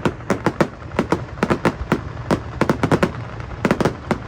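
Fireworks going off in a rapid, irregular string of sharp bangs and cracks, several a second.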